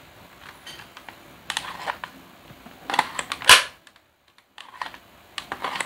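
Plastic clicks and rattles of a spring airsoft rifle's magazine release being pressed and the plastic magazine being worked out of the magazine well, with one sharp click about three and a half seconds in.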